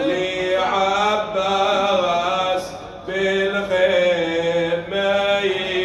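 A man chanting a Shia mourning lament (latmiya) into a microphone, drawing out long, wavering melismatic notes. The phrase breaks off about two and a half seconds in, and a new one begins about half a second later.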